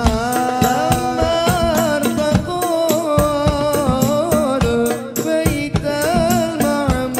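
Sholawat sung by a group of voices with a wavering, ornamented melody, over hadroh frame drums beating a steady, quick rhythm.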